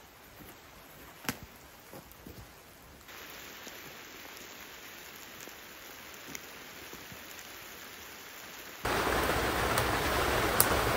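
Light rain falling, with a few scattered ticks and knocks. About nine seconds in it turns much louder: rain pattering on the canvas of a wall tent overhead.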